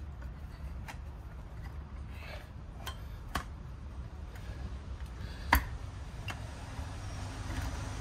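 Light metallic clicks and knocks as an Endless MONO6 racing brake caliper is handled and shifted in a stainless steel tray, with one louder knock about five and a half seconds in, over a low steady hum.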